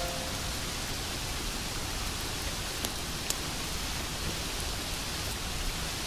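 Waterfall: a steady, even rush of falling water splashing onto rocks.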